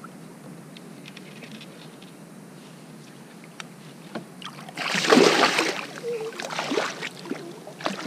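Hooked lingcod thrashing at the surface beside a kayak: quiet water for the first few seconds with a few faint clicks, then a loud splash about five seconds in and a second, smaller one about two seconds later as the fish rolls.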